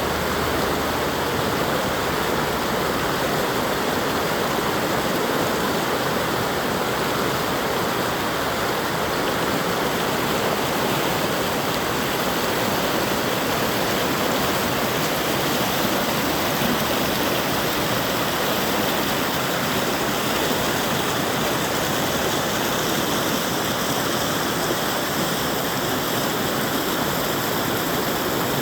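River water rushing over rocks: the steady rush of the East Branch of the Pemigewasset River, unbroken throughout.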